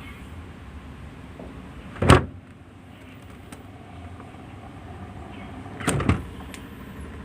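LG refrigerator door being opened and shut: a sharp thump about two seconds in and another door sound near six seconds.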